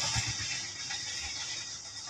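Wheel-and-rail noise of a KAI passenger train fading steadily as it runs away down the track.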